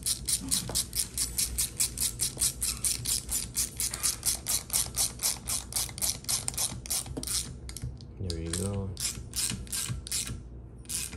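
Quarter-inch hand ratchet clicking rapidly and evenly, about five clicks a second, as camshaft housing bolts are snugged down on a cylinder head before final torquing. The clicking breaks off about eight seconds in, then resumes briefly.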